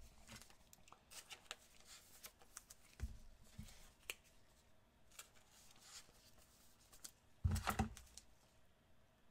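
Trading cards and clear plastic card holders handled by gloved hands: faint clicks and rustles, a soft knock about three seconds in and a louder brushing knock near the end.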